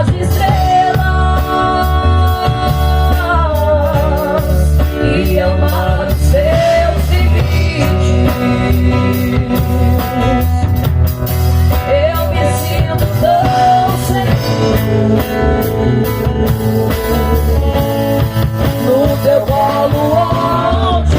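Live band playing a Portuguese-language gospel worship song: steady bass and drums under a lead melody that glides up and down between sustained notes.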